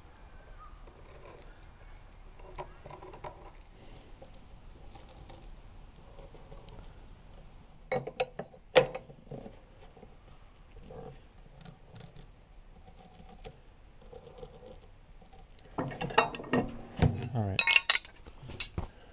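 Metal caster corner brackets of a mobile base kit being handled and set down on a plywood panel while it is pencil-marked: soft handling, a few sharp metal clicks and knocks about eight seconds in, and a louder clatter of metal clinks and knocks near the end.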